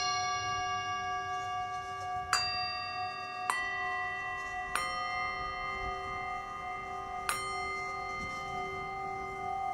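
Background music of struck bells: five strikes, one at the start, three in quick succession in the middle and a last one near the end. Each rings on in long, overlapping tones.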